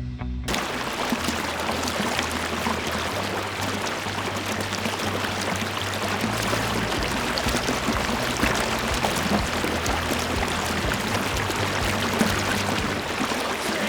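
Waterfall pouring steadily into a swimming hole: an even, unbroken rush of falling water.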